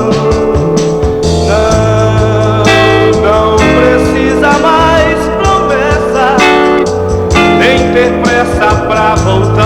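Recorded Brazilian popular music played from vinyl, an instrumental passage with guitar lines over a steady bass and beat.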